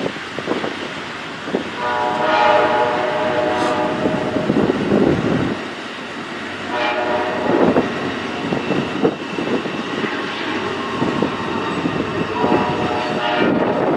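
Diesel locomotive horn sounding three times, a long blast, a short one and another long one, over the rumble and clicking of a train rolling past on the rails.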